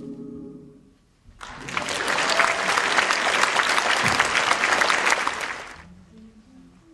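The a cappella group's final held chord fades out, then the audience applauds for about four seconds before the clapping dies away. Near the end a few soft hummed notes begin.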